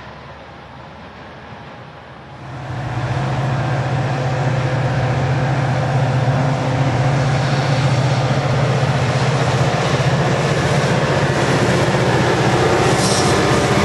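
A Caltrain diesel locomotive passes close by, pulling bilevel commuter cars. Its engine makes a steady low drone over loud wheel and rail rumble. It cuts in abruptly about two and a half seconds in, after a quieter stretch of a train moving away.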